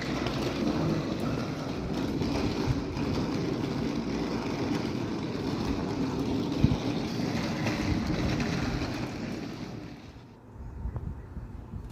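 Metro train running, a steady rumble and rush that dies away about ten seconds in.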